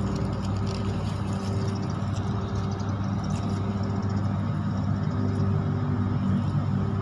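An engine running steadily at a constant pitch: an even, low drone that does not change.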